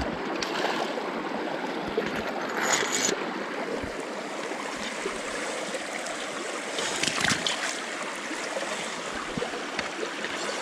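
Steady rush of a shallow stream flowing over rocks, with a few brief splashes of hands working in the water about a quarter of the way in and again around two-thirds through.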